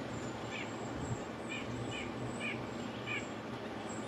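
Ospreys at the nest calling a series of short, high whistled chirps, roughly one every half second, over a steady low background hum.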